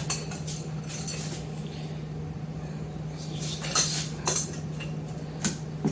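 A few sharp metallic clinks and knocks of tools and parts against the engine, mostly in the second half, over a steady low hum.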